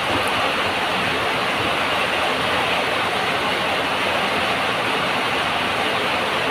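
Heavy rain pouring down, a steady, loud, unbroken hiss that covers every other sound.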